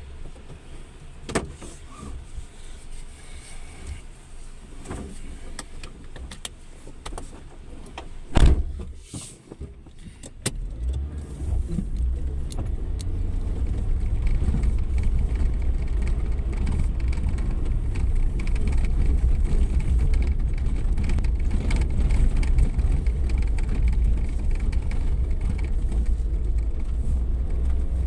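Scattered clicks and knocks with a loud thump about eight seconds in. From about ten seconds in, a Suzuki Jimny 4x4 runs with a steady low rumble that grows louder and then holds.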